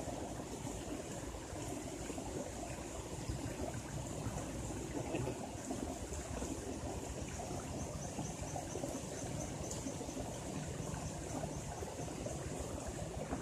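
Steady rushing of water, even and unbroken, with a faint high hiss above it and a short run of quick faint ticks about eight seconds in.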